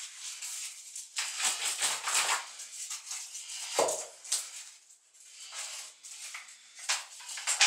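A sponge being rubbed over glass mosaic tiles in a series of irregular scrubbing strokes, with a short squeak about four seconds in.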